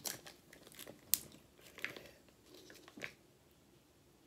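Paper taco sauce packet crinkling and tearing as it is bitten open, a handful of sharp crackles over about three seconds.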